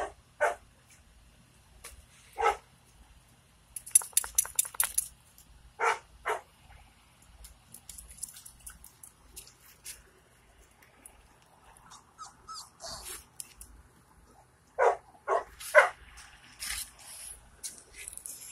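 Puppy giving short, high yips and barks, singly or two or three close together, with a quick patter of sharp clicks about four seconds in.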